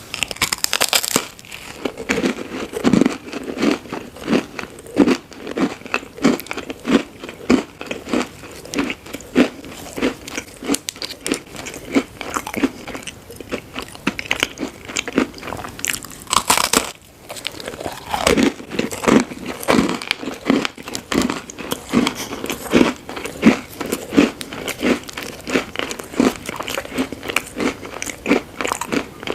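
Close-miked chewing of crunchy food: a steady run of crisp crunches with sharper bites about a second in and again around 16 seconds.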